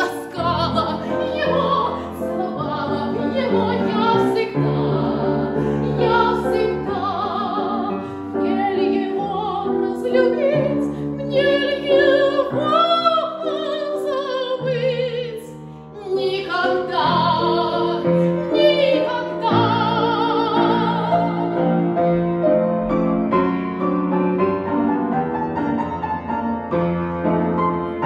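A woman singing a Russian romance in a classical operatic voice with strong vibrato, accompanied by a grand piano. In the last several seconds the voice drops out and the piano plays on alone.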